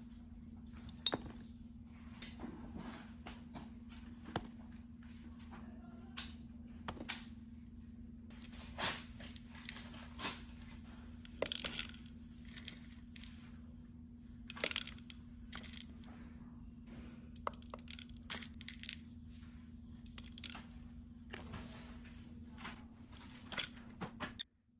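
Small balls dropping and landing with sharp clicks and clinks in irregular bursts, over a steady low hum.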